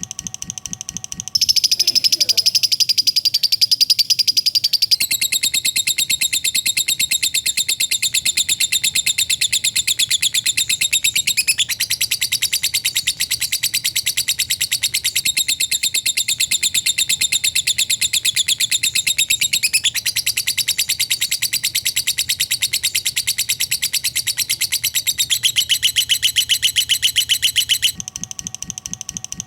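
Lovebird's ngekek song: one long, very fast, high-pitched chattering trill. It starts about a second in, runs unbroken for some 26 seconds, shifts in pitch a few times and stops abruptly near the end.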